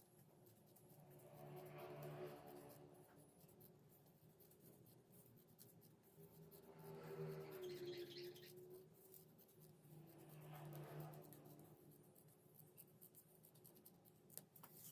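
Near silence with faint scratching and crinkling of plastic sheet being handled, and three faint swells of a distant pitched sound.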